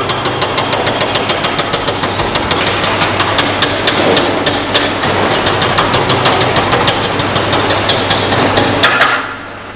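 Diesel engines of a Liebherr hydraulic excavator and a Mercedes NG dump truck running, with a dense clatter of soil and stones tipping from the excavator bucket into the truck's steel dump body from about two seconds in. The sound drops off sharply near the end.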